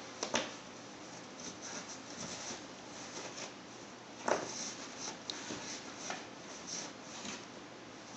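A cat scratching and pawing at a cardboard box: intermittent faint scratches and rustles, with a louder scrape about four seconds in.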